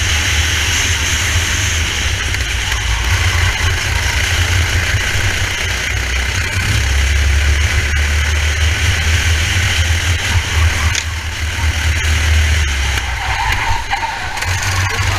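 Racing kart engine running at speed, heard from the driver's helmet camera with heavy wind buffeting on the microphone. The engine note eases off briefly about eleven seconds in and again near the end, as if lifting for corners.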